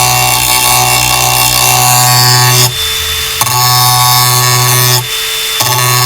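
Angle grinder grinding the cutting edge of a steel lawnmower blade: a loud, steady whining hum over a hiss. The hum drops out twice for about half a second, near the middle and about five seconds in.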